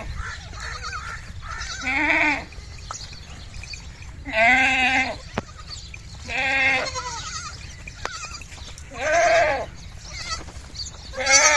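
Goat kids bleating repeatedly. There are five loud, quavering bleats about two seconds apart, with fainter bleats in between.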